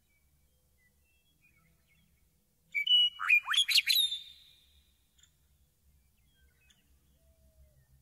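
Meadowlark singing one short song phrase about three seconds in: two clear whistled notes followed by a quick run of falling, warbling notes, about a second and a half long.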